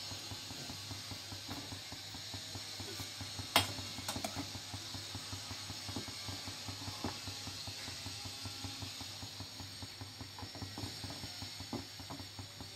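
A pan of spinach blanching in boiling water, with a dense crackle of bubbling over a steady low hum. There is a single sharp click about three and a half seconds in, and a few fainter taps later as a metal slotted spoon stirs the leaves.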